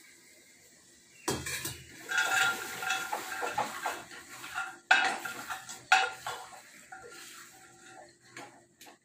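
Steel ladle scraping and clanking against the inside of a pressure cooker as curry is stirred, with ringing metal clangs. It starts with a knock a little over a second in; the sharpest clangs come about five and six seconds in.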